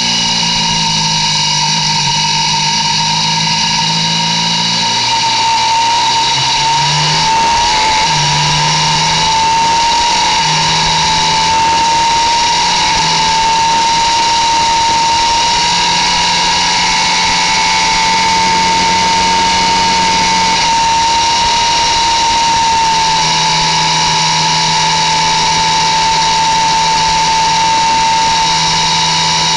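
Ducati 1198 superbike's L-twin engine at full throttle, heard from onboard, with a high whine. The revs rise over the first several seconds as the bike pulls up through the gears, then hold high and steady near 10,000 rpm on the banking.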